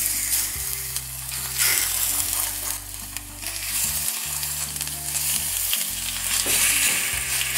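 Beef pieces sizzling in hot oil in a stainless steel pot as they are seared. The sizzle swells a few times as more pieces are laid in with tongs.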